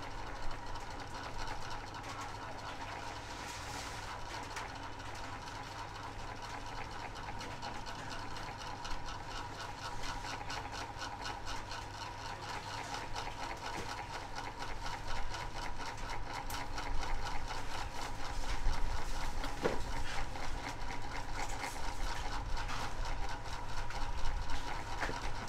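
A steady mechanical hum with a fast, even buzz, like a small motor running, getting somewhat louder in the last third, with a few soft knocks over it.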